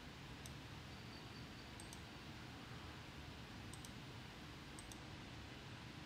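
Faint computer mouse clicks over low room hiss: a single click, then three quick pairs of clicks a second or two apart.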